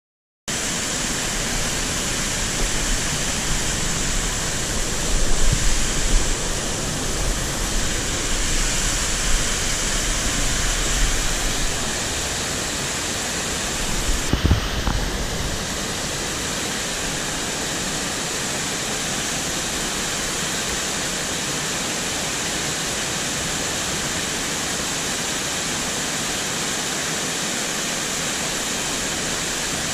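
A small mountain torrent pouring over a little waterfall into a rocky pool: a steady rush of water that starts suddenly about half a second in. A brief low thump comes about fourteen seconds in.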